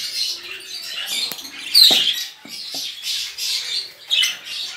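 Budgerigar chicks giving repeated high, raspy begging squawks while being handled, with a few light knocks from the cardboard nest box.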